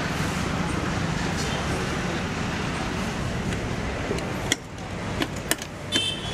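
Steady road-traffic noise with a faint murmur of voices. After about four and a half seconds the noise drops and a few sharp clicks and knocks follow.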